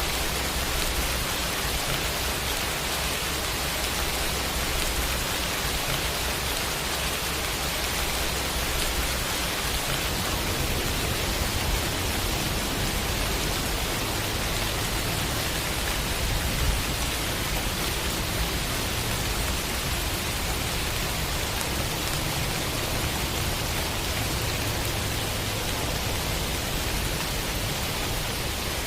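Steady rain sound effect: an even, unbroken hiss of falling rain.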